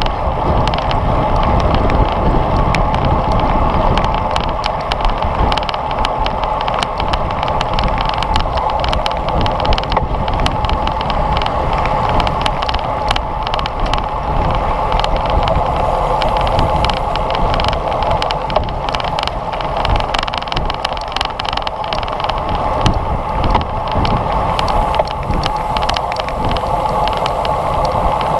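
Wind and road noise rushing past a bicycle-mounted action camera at race speed, with a steady rush and frequent small rattling clicks.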